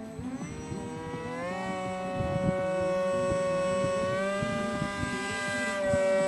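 Electric motor of a homemade foam radio-controlled plane spinning up: its whine rises in pitch over the first second or two, then holds steady, stepping up slightly about four seconds in.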